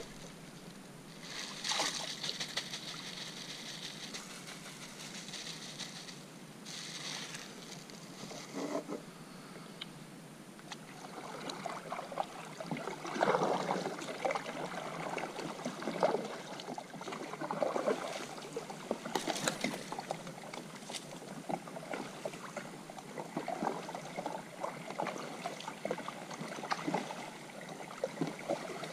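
Kayak paddle strokes in river water: the blades dip and splash, with water dripping and trickling off them, a little irregularly, in the second half.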